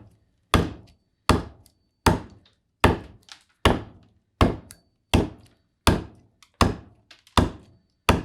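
Steady chopping strokes of a hand carving tool into green black walnut, hollowing a bowl blank: a sharp knock about every three quarters of a second, eleven in all, each dying away quickly.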